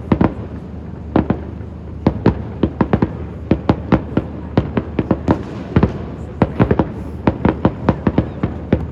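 Fireworks display: a rapid, irregular run of sharp bangs from bursting fireworks, a few at first and then, from about two seconds in, several a second.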